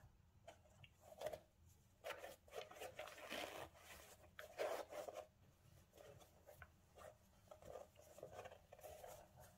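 Faint scratching and rustling in short, irregular strokes as cotton-gloved hands handle the laces and upper of a Nike Air Max Plus 3 sneaker.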